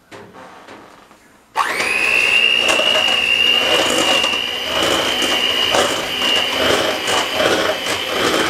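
Electric hand mixer switched on about a second and a half in, its pitch rising briefly as the motor spins up, then running steadily on low with a high whine, its beaters whipping boiled potatoes with butter and milk in a steel pot.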